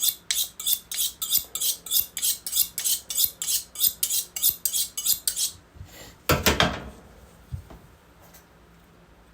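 Skinning knife being sharpened with quick, even strokes of metal scraping on metal, about three to four a second. The strokes stop after about five seconds, and a single louder knock follows about a second later.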